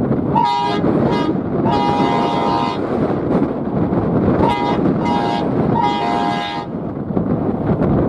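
Train horn sounding two chord-like blasts, two short and one long, then the same short-short-long pattern again, over a steady rumble.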